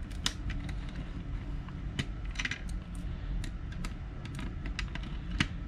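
Scattered small clicks and taps of plastic and metal parts being handled as the stock CPU cooler hold-down brackets are taken off a mini-ITX motherboard, with one sharper click near the end, over a low steady hum.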